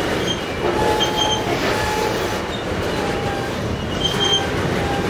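Freight train of covered hopper cars rolling past close by: a steady rumble of wheels and trucks on the rails, with brief high-pitched wheel squeals cutting in several times.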